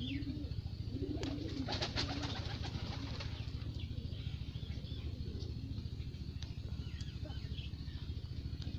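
Pigeons cooing in a loft, the low coos coming in the first two seconds among a few sharp clicks and flutters, then fainter short chirps from other birds. A steady low rumble runs underneath.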